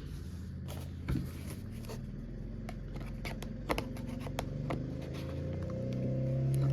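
A product box being handled and opened: a scattered run of light clicks, taps and scrapes. Music fades in, growing louder toward the end.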